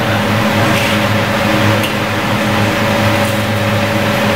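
Steady, loud hum and whine of a commercial wok range, with its burners and fan running, and a few faint scrapes of a metal spatula in the wok as fried rice is stirred.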